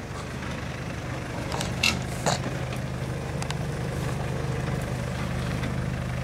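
Mitsubishi Pajero engine running steadily at low revs as the 4x4 crawls over rough off-road ground. A few short sharp knocks come about two seconds in.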